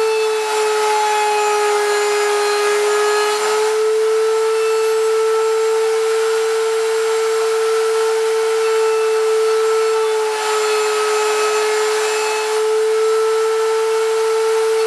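Router mounted under a router table, running with a steady high whine. Its pitch sags slightly twice as it takes the load of cutting a strip of wood fed past the bit.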